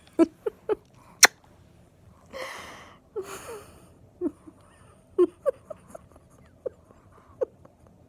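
Small dog snuffling at close range: a breathy snort about two and a half seconds in and another just after three seconds, among short soft clicks and squeaks.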